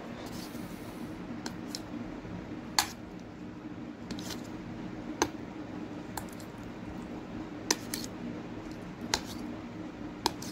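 Metal spoon clinking and scraping against a stainless steel bowl while cutting up boiled eggs and mixing them with masala, with a sharp clink every couple of seconds over a steady low hum.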